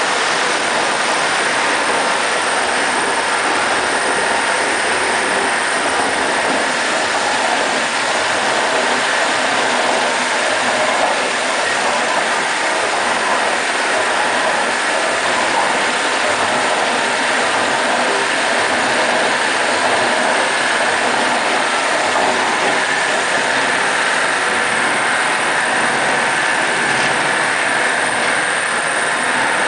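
Kuzlitmash KB8336 knuckle-joint press running, its main drive motor and flywheel giving a steady, loud mechanical noise without distinct blows.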